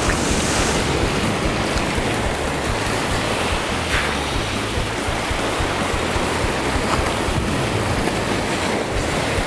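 Surf washing onto a stony shore, a steady rushing noise, with wind buffeting the microphone.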